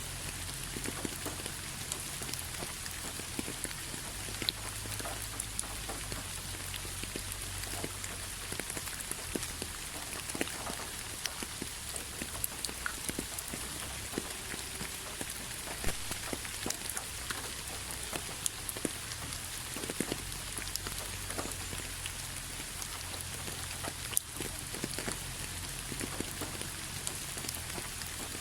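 Steady rain falling, an even hiss with many separate drops ticking sharply on a hard surface.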